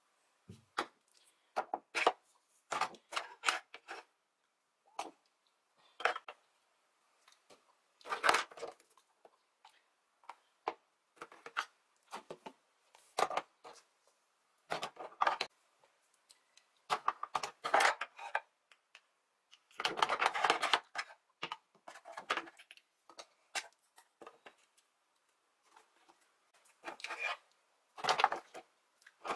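Makeup products being handled and sorted by hand: glass dropper bottles, plastic tubes and compacts picked up, set down on a tabletop and dropped into a box. Irregular clicks and taps with short rattling clatters, the longest about two-thirds of the way through.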